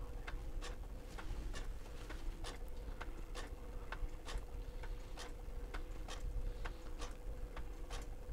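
Radio Shack TRS-80 TP-10 thermal printer printing line by line, sped up to double speed: a quiet, even run of clicks, about three a second, over a steady faint hum.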